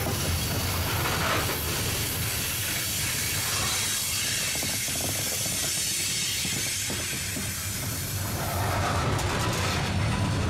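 Loaded coal hopper cars of a freight train rolling past close by: a steady rumble and hiss of steel wheels on the rails.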